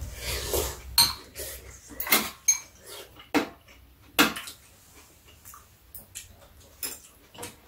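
Spoons and chopsticks clinking against ceramic bowls during a meal: irregular sharp clicks, the loudest about one, two, three and a half and four seconds in, then fainter and sparser.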